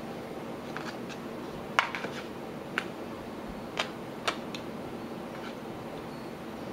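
Metal kitchen tongs clicking as grilled onions are laid onto sausages in buns: four sharp clicks between about two and four and a half seconds in, with a few fainter ones, over a steady low room hum.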